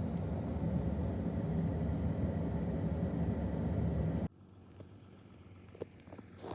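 Steady low rumble of a car driving, heard from inside the cabin, which cuts off abruptly about four seconds in, leaving a quiet background with a few faint clicks.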